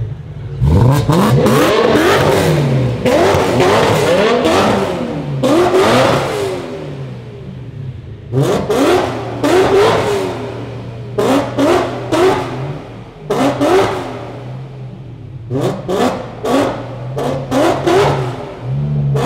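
Tuned BMW M3 E92's V8 through a custom exhaust, revved over and over inside a tunnel. Several long revs come first, then groups of quick blips, and the engine drops back to idle between them.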